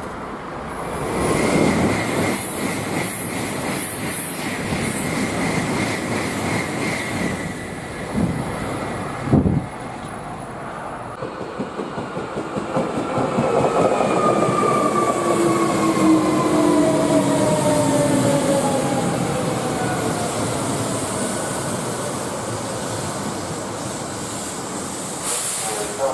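Electric train running through a station: wheel clatter on the rails and a motor whine that falls slowly in pitch over the second half.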